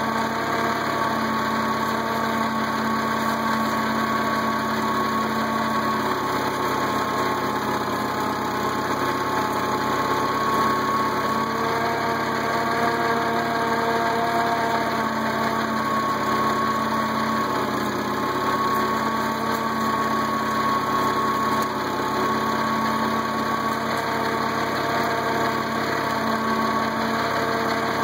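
International Cub tractor's four-cylinder flathead engine running steadily at low speed in first gear, pulling a cultivator through the soil.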